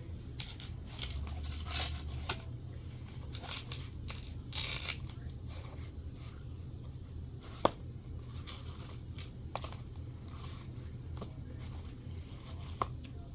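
Slime being handled and pulled apart: a few short, scratchy tearing swishes, then three sharp clicks spread over the rest of the time.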